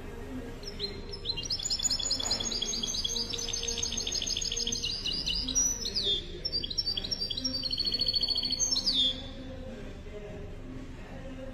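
Caged goldfinch × canary hybrid (mule) singing: a long run of fast, twittering phrases of repeated high notes, beginning about a second in, ending in a quick buzzy trill and stopping a couple of seconds before the end.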